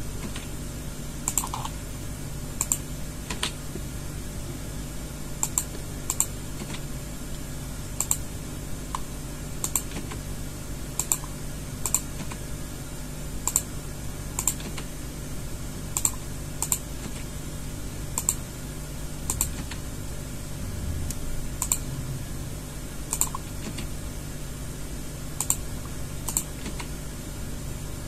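Computer keyboard and mouse clicking: single sharp key and button clicks at irregular intervals of about a second, from grab-and-place edits, over a steady low hum.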